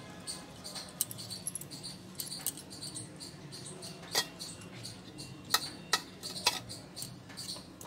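Large taro leaves rustling and crinkling as they are folded over a filling and pressed flat by hand on a steel plate, with about half a dozen short sharp clicks.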